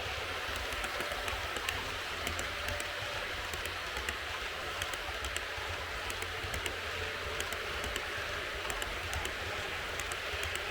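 HO-gauge model freight train running on the track: a steady rolling rush over a low hum, dotted with many small irregular clicks from the wheels crossing rail joints.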